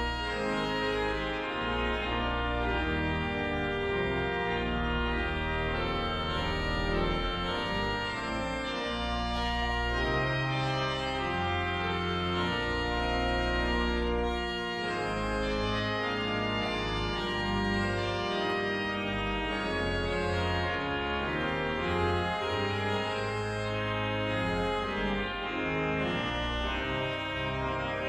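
Church pipe organ playing sustained full chords over deep pedal notes, the harmony changing every second or so at a steady, full volume.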